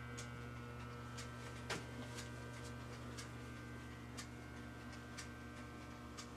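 Faint, regular ticking about once a second, over a steady electrical hum, with one slightly louder click about two seconds in.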